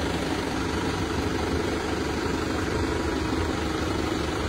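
An engine running steadily with an even hum, over the hiss of rain on floodwater.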